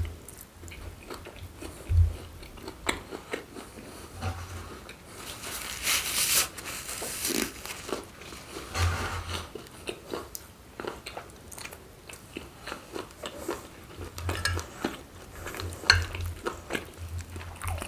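Close-miked chewing: wet mouth sounds and crunching as a bite of seared steak is chewed, irregular and continuous, with a longer crunchy stretch midway. Near the end a spoon scoops through mac and cheese on a plate.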